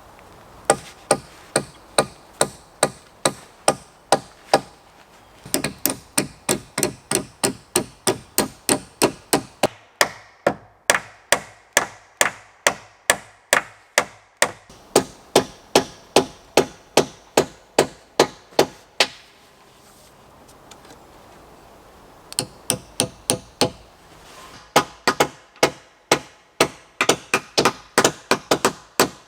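Hammer driving nails into wood: long runs of steady, sharp blows, about two to three a second, broken by short pauses between nails.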